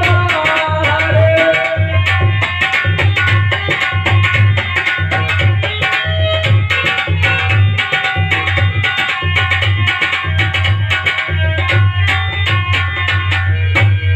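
Instrumental interlude of a rural bhajan: hand drums play a fast, steady beat with a strong low thump, under a melody of held notes.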